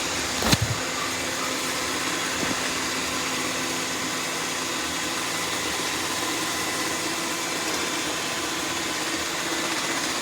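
Robot vacuum running, its motor and brushes giving a steady whirr with a faint whine, with a sharp knock about half a second in and a lighter one a couple of seconds later.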